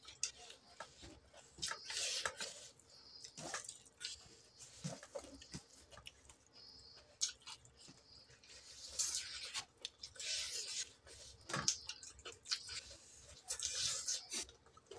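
Close-up eating sounds of chicken curry and rice eaten by hand: wet chewing and lip-smacking in irregular clicks and squelches, with fingers squishing rice into the curry on the plate.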